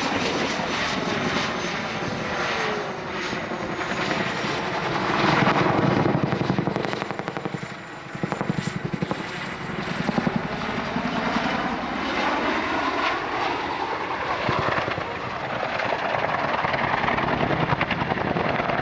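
Boeing Chinook tandem-rotor helicopter flying a display manoeuvre: the rapid beat of its rotor blades and the whine of its twin turboshaft engines, rising and falling in pitch as it climbs, dives and turns. It dips briefly about eight seconds in, then the blade beat comes back strongly.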